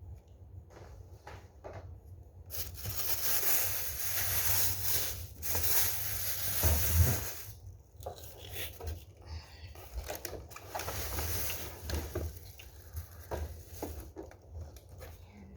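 Nespresso coffee machine hissing as it froths and dispenses milk: a loud hiss for about five seconds starting a few seconds in, then a weaker spell about ten seconds in, with small clicks and rattles around it.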